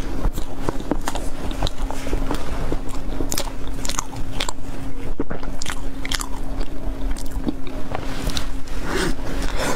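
Close-up mouth sounds of a person biting and chewing soft yellow food: wet smacks and clicks coming irregularly, several a second. A steady low hum runs underneath.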